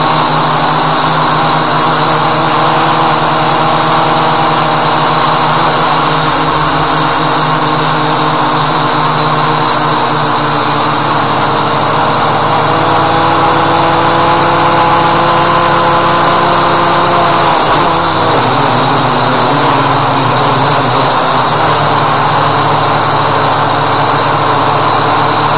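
Walkera Voyager 3 quadcopter's electric motors and propellers whirring in flight, heard through the drone's own camera, with a steady high-pitched whine. The motor pitches drift, then about eighteen seconds in they dip sharply and climb back.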